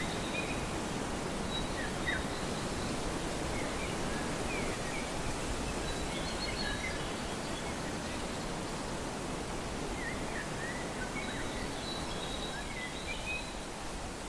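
Outdoor park ambience: a steady rushing background noise, with small birds chirping in short calls on and off.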